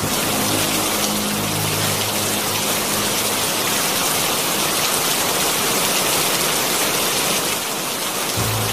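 Steady rain falling, an even hiss. A low droning tone sits under it, fading after the first few seconds and coming in again near the end.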